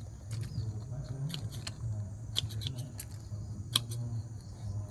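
Pruning shears snipping the twigs of a ficus bonsai: several sharp, separate cuts, the loudest a little before the end, over a steady low hum.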